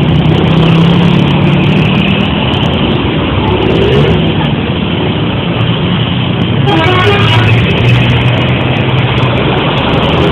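Bus engine running close by with loud steady road noise, and a quick run of short horn notes at several pitches about two-thirds of the way through: the multi-tone 'telolet' bus horn playing its tune.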